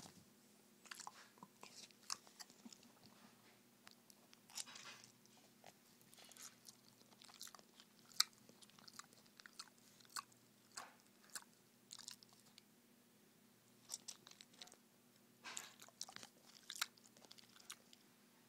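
Potbellied pig licking and mouthing a kitten: faint, irregular wet mouth smacks and clicks in short clusters with pauses between.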